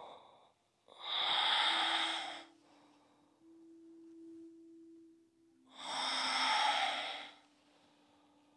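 A woman's deep breaths heard close to her microphone, two long breaths about five seconds apart, paced with a flowing yoga side-bend stretch. A faint steady hum sounds between them.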